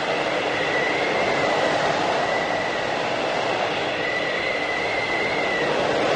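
Whiteout blizzard wind blowing steadily, with a thin high whistle that swells and fades several times over the rushing noise.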